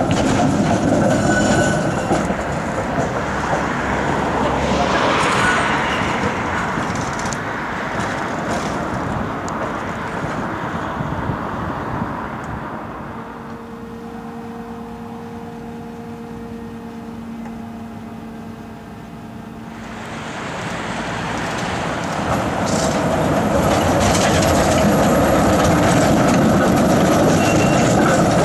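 Type E2 trams rolling slowly past over the rails, with the noise of wheels on track and motors. About halfway through it quietens to a steady hum for several seconds, then a tram passes close by and it grows loud again.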